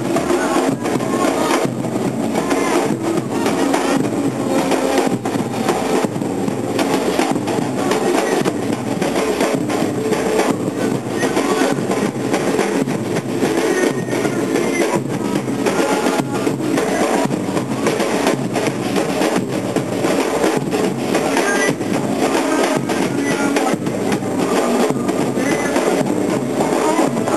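A bloco afro street percussion band, many large surdo bass drums beaten with sticks along with other drums, playing a continuous driving rhythm in unison.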